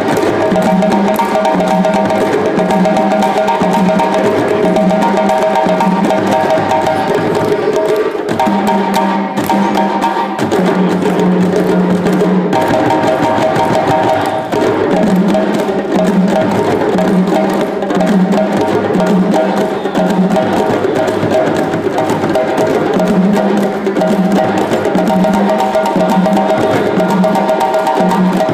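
West African drum ensemble: many djembes struck by hand, with stick-played dunun bass drums, playing a steady interlocking rhythm with a repeating low pattern.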